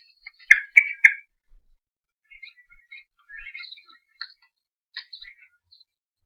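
Small birds chirping: a few louder chirps in the first second, then faint scattered chirps.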